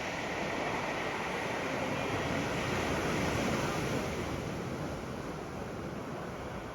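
Ocean waves washing up onto a sand beach. The surge swells to its loudest about halfway through and then eases off.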